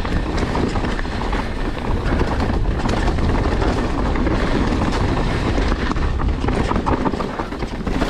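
Mountain bike rolling down a dirt singletrack: tyres crunching over dirt and stones, with the bike rattling and clattering over the bumps as a steady rumble full of small clicks.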